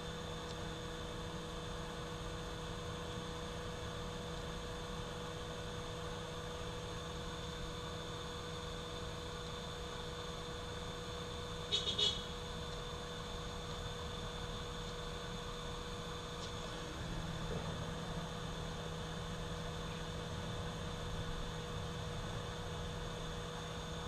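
Steady electrical hum with a faint high whine, broken by one short click about halfway through.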